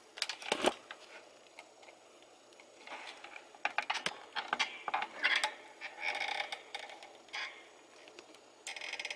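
Irregular small scrapes, taps and clicks of a soldering iron tip being worked in solder and flux in the groove of a tin can lid, as the tip is tinned.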